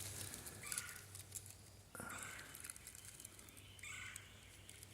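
Faint bird calls in woodland: three short calls about a second and a half apart.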